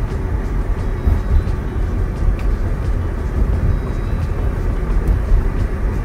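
Steady low rumble of a car's tyres rolling over an unpaved road, heard inside the cabin, with a few faint ticks of grit under the tyres.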